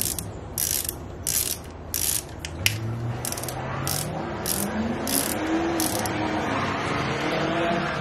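Ratchet wrench clicking in short repeated bursts as it turns the 10 mm camshaft cap bolts on a KA24DE cylinder head. From about three seconds in, a car doing a burnout joins in: its engine revs up, rising in pitch, and holds high to the end.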